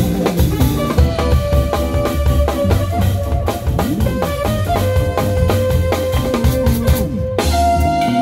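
Live jazz band playing: a drum kit keeps busy time under long held trumpet notes and keyboards. Near the end the drums drop away and a single higher note is held.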